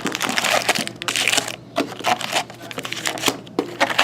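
Crinkling plastic wrap and rustling cardboard as a sealed box of trading cards is torn open, in uneven bursts with small sharp cracks.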